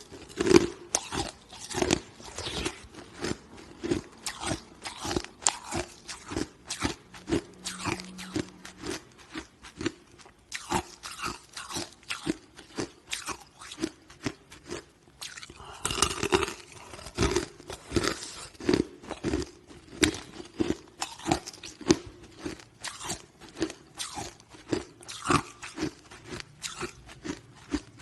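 Close-up chewing of hard chunks of green ice: a steady run of loud, sharp crunches, two to four a second, with a short pause about a third of the way through.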